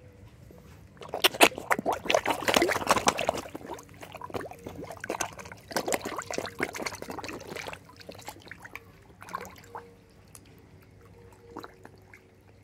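A crowd of koi splashing and thrashing at the water's surface as they jostle for food from a hand, in heavy bursts for the first several seconds, then settling to smaller, scattered splashes.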